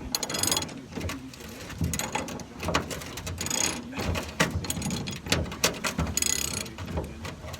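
Hand socket ratchet clicking in short bursts on a truck bed bolt, several strokes of rapid pawl clicks with brief pauses between.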